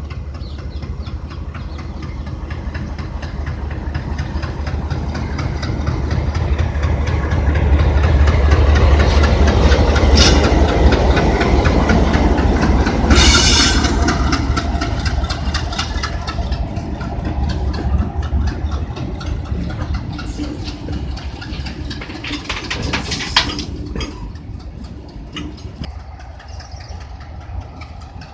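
Alco WDG-3A diesel freight locomotive's engine under load as it hauls a train past, a deep throb that builds to its loudest about eight to thirteen seconds in and then fades as the wagons clatter by. A brief loud burst comes about thirteen seconds in.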